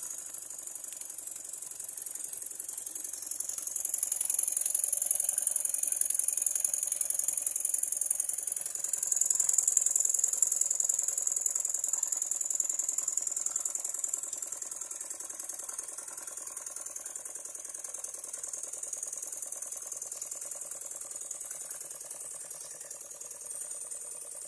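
Jensen #20G toy live steam engine running steadily under steam, driving its small generator: a fast, even mechanical rattle of the running engine under a constant high steam hiss.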